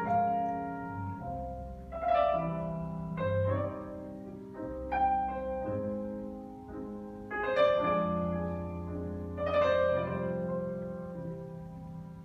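Live ensemble music in a quiet, keyboard-led passage: chords struck every second or two and left to ring out over held low notes.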